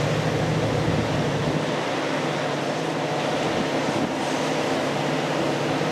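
Diesel locomotive engine running, a steady low drone that holds one pitch throughout.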